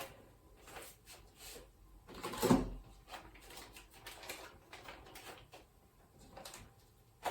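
Intermittent soft rustling, clicks and knocks of small parts and packaging being handled while searching through the robot kit for cables, with one louder knock about two and a half seconds in.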